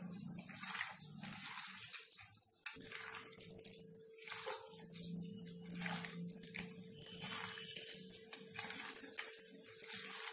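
Cleaned anchovies being mixed by hand with a wet spice paste and flour in a bowl: wet, irregular strokes of the hand working through the masala, roughly one or two a second.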